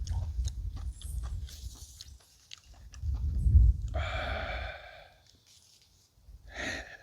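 Close, wet chewing and biting of boiled pork trotters, with small smacking clicks, and a brief hum about four seconds in.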